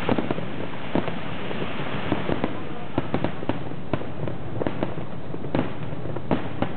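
Fireworks going off: many sharp cracks and pops at irregular intervals over a steady background rush.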